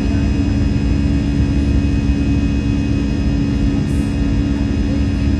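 Airbus A320 jet engines and airflow heard from inside the passenger cabin: a steady, loud drone with a constant hum that does not change.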